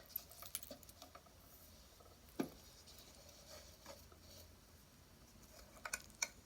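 Strands of pearls being handled, the beads giving faint scattered clicks and light rattling, with one sharper tap about two and a half seconds in and two more clicks near the end.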